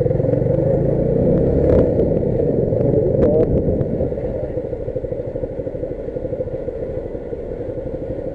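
Dafra Apache RTR 150's single-cylinder engine running while riding; it is louder for the first few seconds and then eases off about three and a half seconds in. A few short clicks sound over it.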